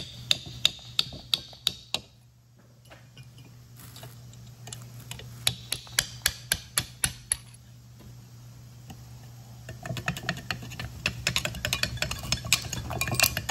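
Sharp metal-on-metal clicks and taps as a rusted pad retaining pin is worked loose in an original 1968 Camaro four-piston disc brake caliper. They come in short runs of about three a second, then turn into faster, denser clicking near the end.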